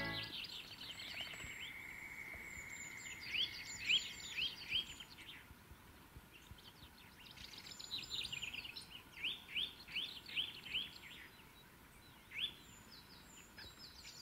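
Eurasian nuthatch singing: quick series of short, rising whistled notes, given in several phrases with pauses between them.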